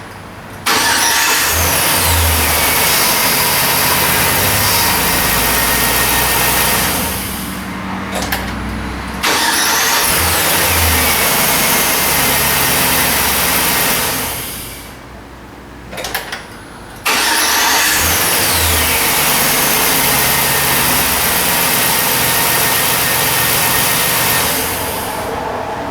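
2006 Chevy Silverado 1500 engine, cranked on a newly fitted starter, firing up three times in a row and running a few seconds each time before it is shut off. A whine falls in pitch after each start. The truck now cranks and starts normally; the old starter had failed.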